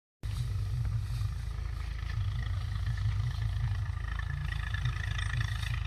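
An engine running steadily with a low rumble, starting abruptly just after the beginning.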